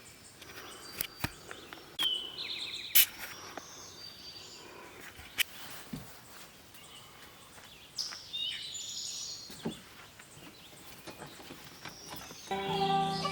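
Quiet outdoor ambience with scattered bird chirps and short trills, some falling in pitch, and a few sharp clicks and knocks. Music comes in near the end.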